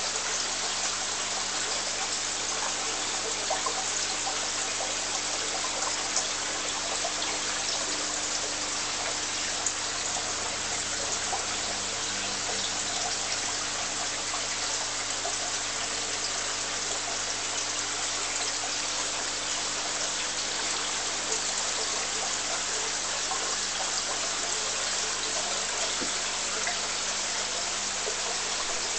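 Steady trickling and splashing of circulating aquarium water, with a low, even hum underneath.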